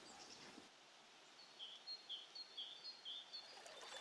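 Faint bird calls: a short run of quick, repeated high chirps, about two a second, starting about a second and a half in and stopping shortly before the end, over quiet countryside ambience.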